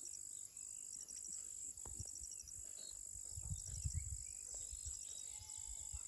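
Steady high-pitched insect chorus, with groups of short chirps repeating every second or so over it. A brief low rumble comes about three and a half seconds in.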